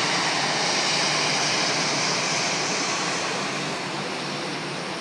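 Jet airliner's engines running as it taxis past, a steady rushing noise that fades a little over the last couple of seconds.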